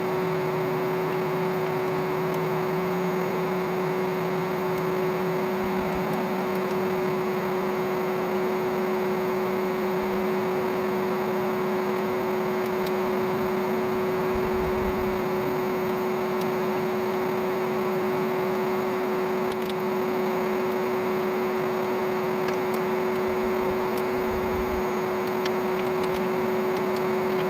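Old vacuum cleaner motor running steadily as the coal forge's air blower: a constant whine over a steady rush of air.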